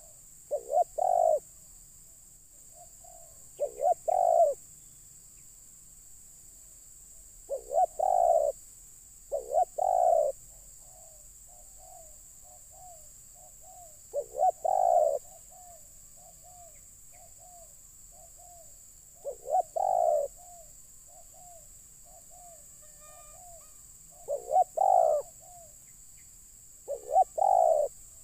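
Spotted dove cooing, repeating its short phrase about every two to five seconds. Softer, quicker coo notes come between the phrases.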